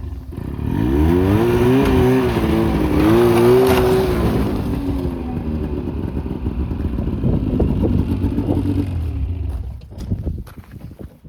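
An engine revs up about a second in and wavers in pitch for a few seconds, then runs more steadily before dropping away near the end.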